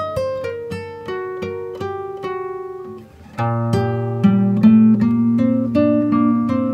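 Background music: acoustic guitar picking out a steady run of single plucked notes. It breaks off briefly about three seconds in and comes back fuller, with low bass notes held underneath.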